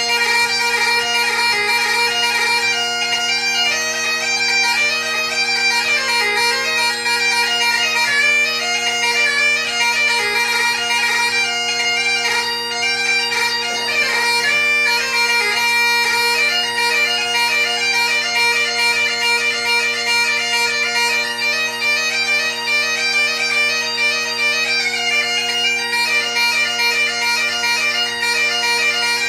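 Great Highland bagpipe played solo: the drones hold one unbroken low chord under a chanter melody that moves quickly from note to note.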